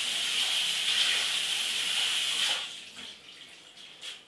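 Water running steadily from a tap, shut off about two and a half seconds in.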